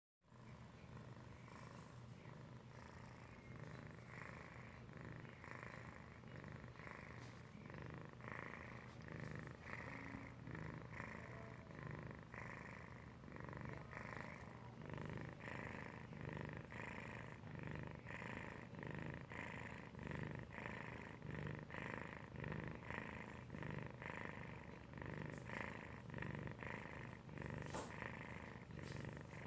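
Domestic cat purr-snoring: a purr mixed with snoring, pulsing in a steady rhythm with each breath. A few short clicks near the end.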